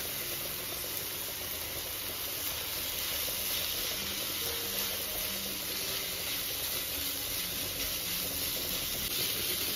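Minced chicken, onion and peppers frying in oil in a pan, sizzling steadily.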